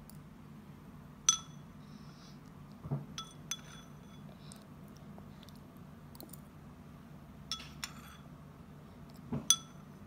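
Metal spoon clinking against a ceramic bowl: several short, ringing clinks spaced a second or more apart, over a low steady hum.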